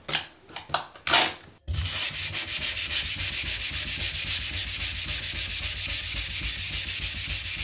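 Sandpaper on a hand sanding block rubbed over a hardened porcelain chip-repair patch on a bathtub, sanding the filler down flush. A few separate strokes come first, then after a brief break a steady run of fast back-and-forth strokes, about seven a second.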